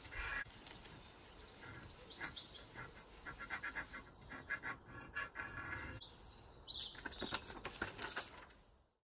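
Small birds chirping and singing, over the rapid scratching of a drawing tool scribbling on paper; the sound fades out near the end.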